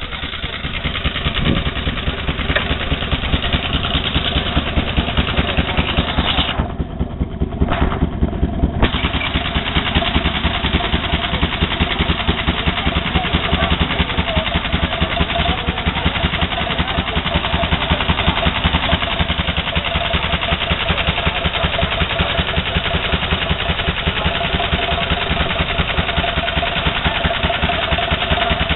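Veteran car engine running at idle, a steady rapid beat of firing strokes.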